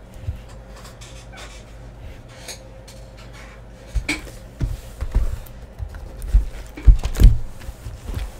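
Small cardboard boxes of trading-card packs being handled and set down on a table: a few faint clicks at first, then from about four seconds in a run of dull thumps and knocks as the stack is moved, loudest in the second half.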